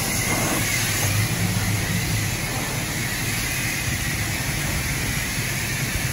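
High-pressure car wash wand spraying water onto a pickup truck, a steady hiss with a low hum underneath.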